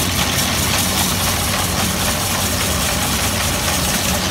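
Cast-iron ice shaving machine running, its blade plate shaving a block of ice into a cup for an ice gola: a loud, steady grating hiss over a low, steady hum.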